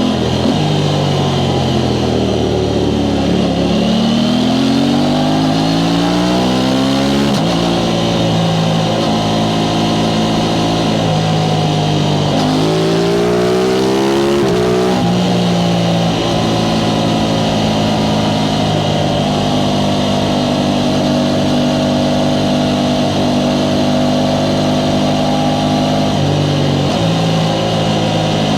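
Aprilia Tuono 660 Factory's stock-exhaust parallel-twin engine under way. It climbs in revs and drops sharply on an upshift about seven seconds in, then climbs and shifts up again about halfway through. After that it holds a steady cruise, with a brief dip and recovery near the end.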